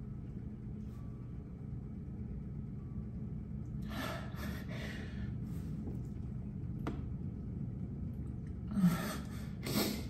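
A woman's heavy, tearful breathing: deep breaths and sniffs about four seconds in and again near the end, one with a slight voiced catch, over a steady low hum of the room. A single sharp click about seven seconds in.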